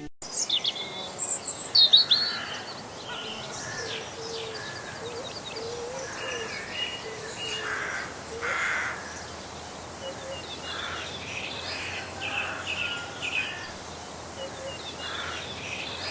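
Several small birds chirping and calling, with clusters of quick repeated high notes in the second half.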